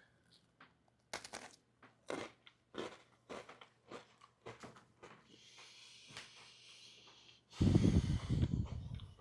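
A person biting into and chewing a crunchy graham sandwich cookie with marshmallow and chocolate cream, a crisp crunch about every half second. A louder, low, muffled sound comes near the end.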